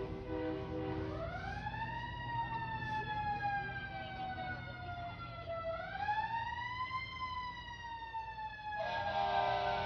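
Emergency vehicle siren wailing through two slow cycles, each rising quickly and then falling off slowly. Music comes back in near the end.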